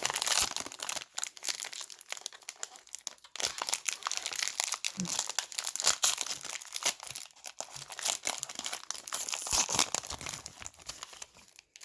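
A trading card pack's wrapper being crinkled and torn open, with dense crackling that thins out near the end.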